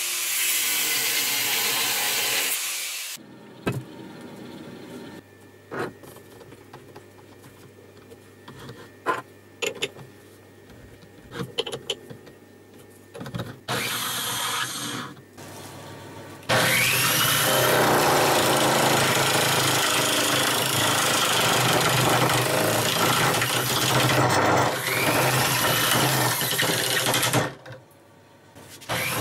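An angle grinder runs for about three seconds against the end of a steel bolt. After a quieter stretch of light clicks and knocks, a power drill clamped as a makeshift lathe spins an apple-wood blank while a gouge cuts it: about ten seconds of loud, steady rasping of the tool on the wood that stops near the end.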